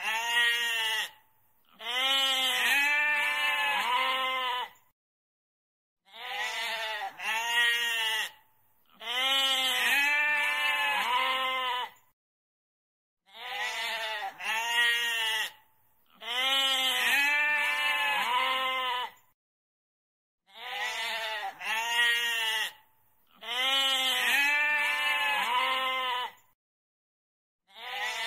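Goat bleating over and over: a pair of short bleats, then one long quavering bleat, with silence between calls. The same pattern repeats about every seven seconds.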